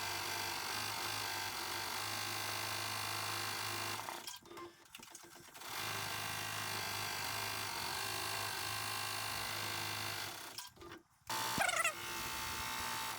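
Embroidery machine running in a steady mechanical hum, cutting out twice briefly. A short, louder, high wavering sound comes near the end.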